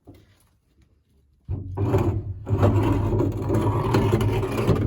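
A heavy loose shelter door being dragged, scraping and grinding against the ground, which it is stuck in. The noise starts abruptly about a second and a half in and runs loud and dense to the end.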